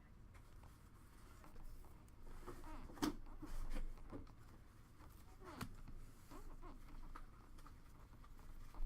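Faint handling of hockey trading cards and their foil pack wrappers: cards sliding and wrappers rustling, with two sharp taps, one about three seconds in and another about two and a half seconds later.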